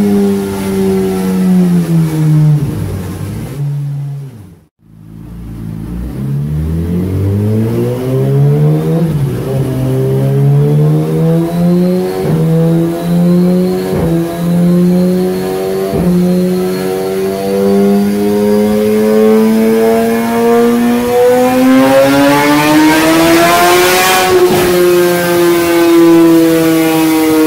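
2017 Suzuki GSX-R1000R's inline-four engine through a Yoshimura full exhaust system with R11 SQ muffler, run on a dyno. The revs fall away at first and there is a short gap about four and a half seconds in. Then comes a full-throttle pull, the pitch climbing steadily for about nineteen seconds, until the throttle closes sharply and the revs drop.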